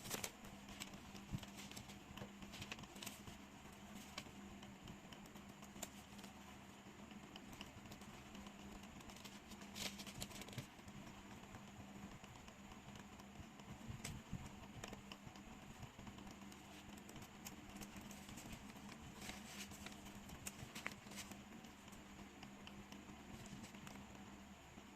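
Faint light taps and rustles of paper labels being handled and laid out in order, with a few louder taps, over a steady low hum.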